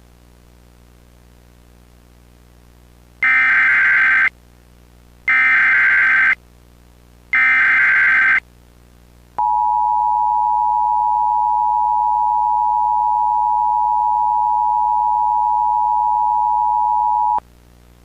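Emergency Alert System signals: three one-second bursts of SAME digital header data, a rasping electronic screech repeated about a second apart, followed about nine seconds in by the steady two-tone EAS attention signal (853 and 960 Hz together), held for about eight seconds before cutting off. A low steady hum sits underneath for the first three seconds.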